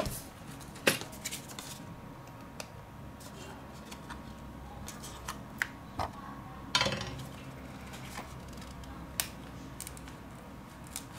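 Faint scattered clicks and taps of a thin metal opening tool and a playing card working into the seam of a Sony Xperia Z2's glued glass back panel to loosen the adhesive. The loudest clicks come about a second in and near seven seconds.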